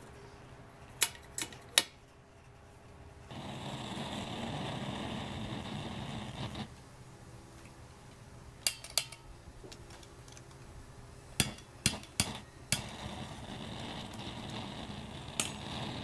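Old brass pressurised blowtorch being lit and adjusted: a torch flame hisses steadily in two spells of a few seconds each. Sharp metallic clicks and taps come near the start and again in the middle.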